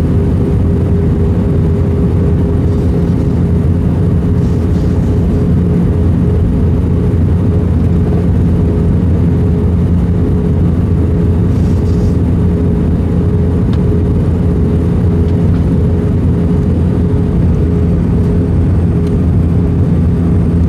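Steady drone of an Airbus A320 cabin in flight: engine and airflow noise with a constant low hum, unchanging throughout.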